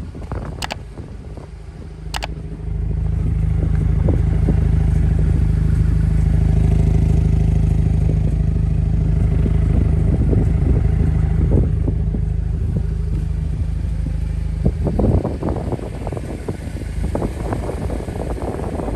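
Jeep Wrangler JL engine running at steady revs with a strong low hum as the Jeep crawls over the flex course, its suspension articulating. About 15 seconds in the engine sound drops back and gives way to an irregular crackling noise.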